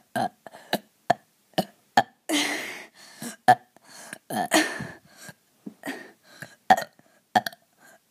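A person forcing burps on command: a run of short throat clicks and gulps, with two longer burps about two seconds in and about four and a half seconds in.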